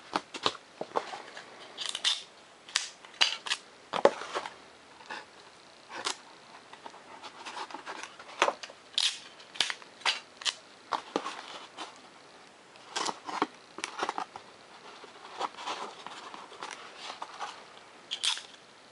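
Clear Scotch tape being pulled off its roll in short, crackly strips and torn off, with irregular sharp clicks and rustles as the strips are pressed onto foam board to hinge an aileron.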